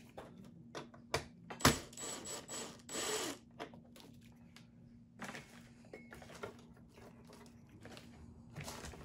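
A cordless drill-driver runs in a few short bursts, driving a screw into a plastic terminal block, just after a sharp knock about a second and a half in. Light clicks of small parts being handled follow.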